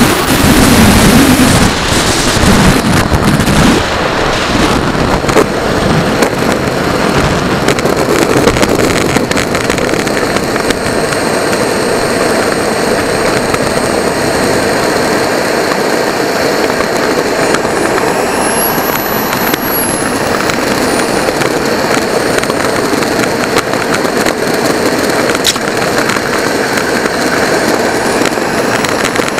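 Onboard sound of a radio-controlled model jet landing: a loud rush and rumble of wind as it comes in low over the runway and touches down, then a steady rushing rattle as it rolls on rough asphalt. From about a third of the way in, a thin high engine whine sounds, and it swells and falls once about two-thirds through.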